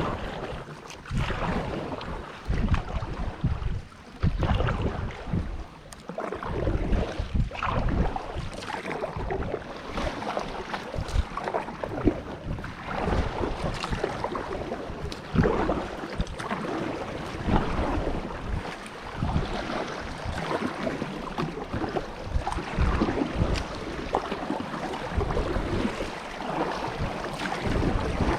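Water splashing and sloshing around a kayak under way on a river, with wind buffeting the microphone in uneven gusts.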